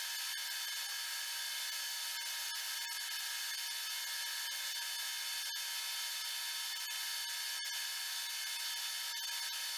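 Metal lathe taking a turning cut along a bar: a steady cutting hiss with the even whine of the spindle drive, the chips coming off stringy as the bar warms up.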